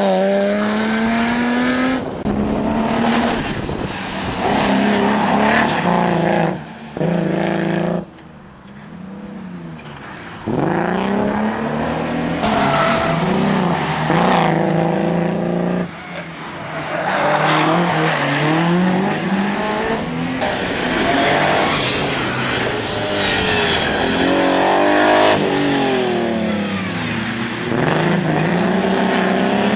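BMW M3 Compact's engine driven hard, its pitch climbing and dropping again and again through the gears, with a brief lift off the throttle about eight seconds in. The engine is misfiring.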